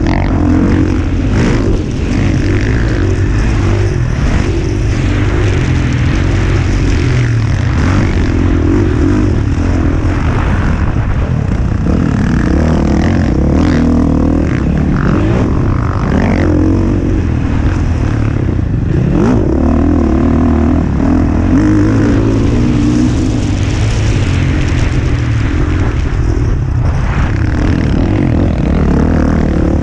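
Dirt bike engine at race pace from the rider's own bike, the pitch rising and falling as the throttle opens and closes.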